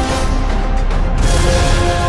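Theme music with long held notes over a heavy bass; a hissing rush comes in about a second in and swells.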